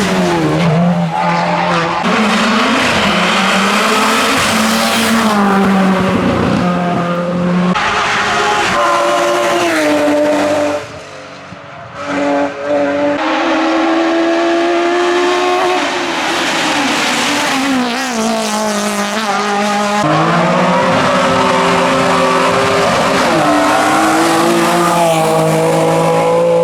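Hillclimb race car engines revving hard under acceleration, the pitch climbing and then dropping at each gear change, with tyres squealing at times. The sound dips briefly about halfway through.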